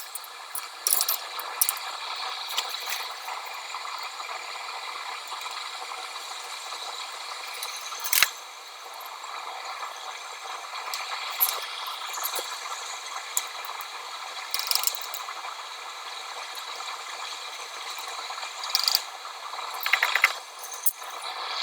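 Scattered small clicks, rattles and scrapes of hand tools handling a circuit board, over a steady hiss. One sharp click comes about eight seconds in and a few more near the end.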